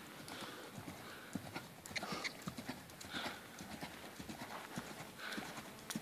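Hoofbeats of a ridden horse moving around a sand arena: a string of soft, irregular thuds from hooves striking the sand footing.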